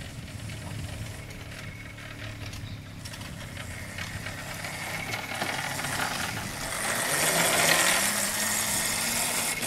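Mini quad bike's small engine running steadily, growing louder as the quad comes up close about seven seconds in.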